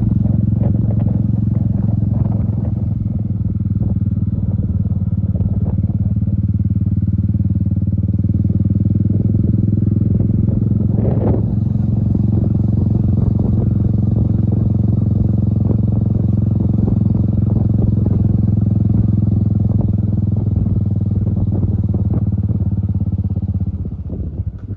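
Royal Enfield motorcycle engine running steadily on the move, with a short clatter about eleven seconds in. The engine sound drops away near the end.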